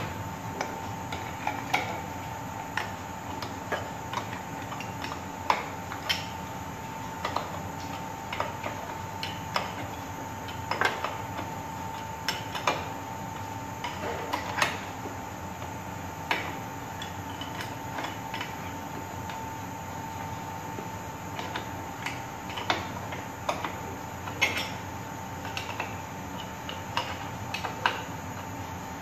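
Steel spanners clinking on the flange bolts and nuts of a pipe's rubber expansion joint as they are tightened: irregular sharp metallic clicks, one every half second to second and a half, over a steady high whine and low hum.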